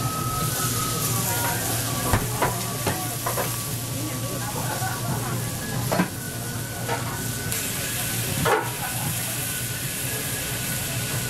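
Chicken and leek skewers sizzling on a hot steel teppan griddle. Several sharp clicks and knocks sound as the skewers are handled and a flat metal press is set down on the plate, over a steady low hum.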